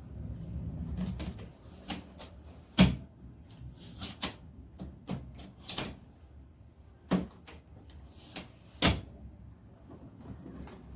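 Hard-shell carry-on suitcase being rolled and handled: a low rolling rumble at first, then a string of irregular sharp knocks and clacks, the loudest about three seconds in.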